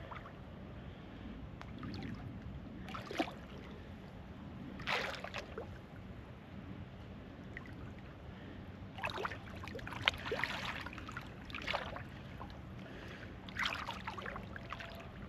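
Water splashing and sloshing at the side of a boat in several short bursts, over a steady low hum.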